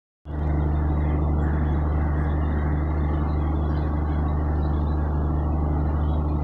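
Steady low hum of trains at a station, with a few held low tones, starting abruptly about a quarter second in and staying level throughout.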